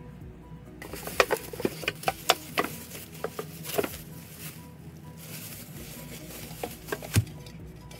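Thin plastic shopping bag crinkling and rustling as it is handled, in quick sharp crackles from about a second in, with a single thump a second before the end. Quiet background music plays underneath.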